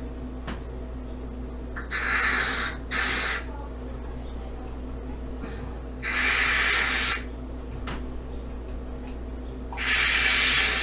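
Aerosol can of shaving cream spraying foam in four separate hissing spurts, one of them about a second long. The can is running out.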